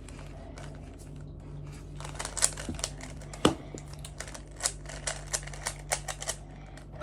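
3x3 Rubik's cube being turned by hand: irregular plastic clicks and clacks as the layers snap round. The clicks come thick and fast from about two seconds in.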